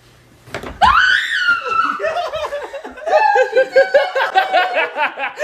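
A person's voice shrieks, rising in pitch, about a second in, then breaks into rapid, pulsing laughter.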